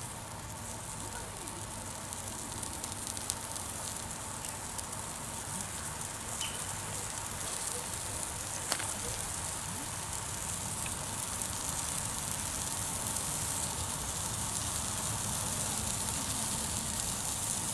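Eggplant halves sizzling on a hot grill grate over charcoal, the sizzle slowly growing louder as more pieces go on, with a few sharp pops.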